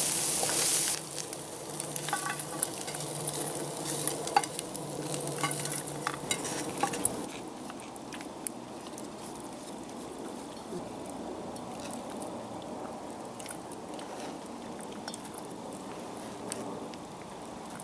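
Bacon sizzling in a frying pan for about a second, then a wooden spoon stirring chopped vegetables in a metal bowl, with light scrapes and clicks.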